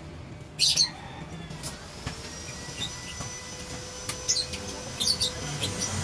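Birds chirping in short bursts, loudest about half a second in and twice more near the end, over low background noise with a few light clicks.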